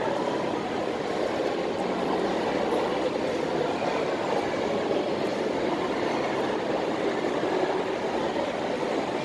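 Steady din of a busy food court: many distant voices blending into one even noise.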